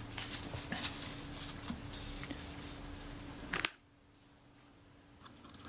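Faint handling of a Synchro-Compur camera shutter on a workbench: small clicks and light rustling over a low steady hum, with one sharper click about three and a half seconds in, after which it goes almost silent for a moment.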